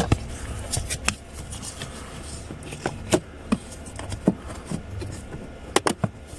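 Plastic parts being handled and fitted by hand: scattered light clicks and knocks, a dozen or so spread irregularly.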